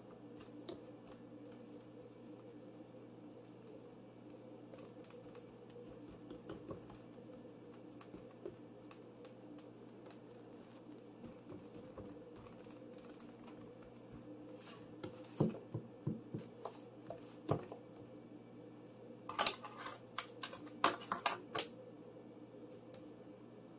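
Hands pressing and crimping pie dough in a glass pie dish. Soft handling noise with scattered light clicks and taps against the dish comes in a flurry about two-thirds of the way in and a louder one near the end, over a steady low hum.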